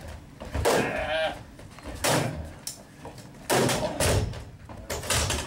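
Steel folding chairs clashing and striking, several sharp metal hits over a few seconds, with a wavering cry just after the first.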